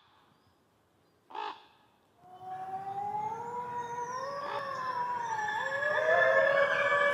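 Grey wolves howling in chorus: from about two seconds in, several long, overlapping howls glide slowly in pitch and grow louder. Two short calls come just before them.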